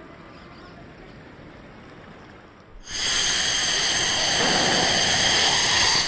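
Faint outdoor background noise, then about three seconds in a loud static-like hiss cuts in suddenly and carries on steadily: an electronic noise sound effect for the logo card.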